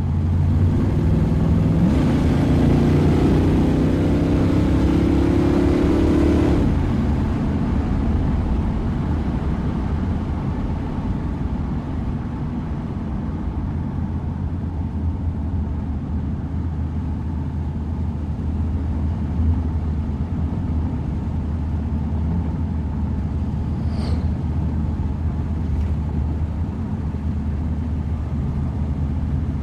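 Ford Mustang engine accelerating, its pitch climbing for several seconds, then dropping suddenly about seven seconds in to a steady, lower running sound that holds to the end.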